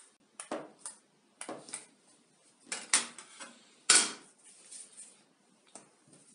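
Metal bench scraper chopping down through soft dough onto a hard tabletop: a series of short knocks and scrapes, the loudest about four seconds in as the scraper is set down, then softer sounds of the dough pieces being handled.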